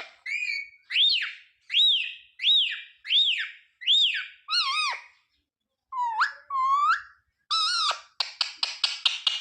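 Indian ringneck parrot (rose-ringed parakeet) whistling a run of about six clear notes, each rising then falling in pitch. Then a few sharp rising calls, and near the end a fast chatter of short notes, about seven a second.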